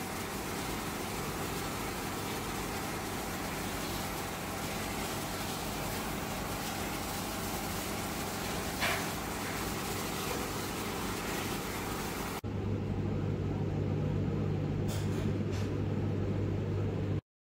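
Steady background noise with no speech. About twelve seconds in it cuts abruptly to a different steady background with a low hum, which stops suddenly near the end.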